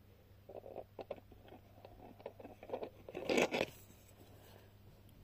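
Light clicks and rustles of small plastic toy horse-jump pieces being handled and fitted together, with one louder rubbing scrape about three and a half seconds in.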